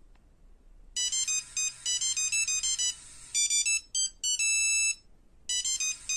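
Electronic ringtone melody of quick, high-pitched notes. It starts about a second in, breaks off briefly near the end and starts over.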